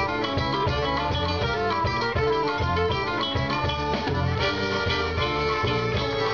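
Live band playing an instrumental break: guitar over a steady bass pulse, with accordion.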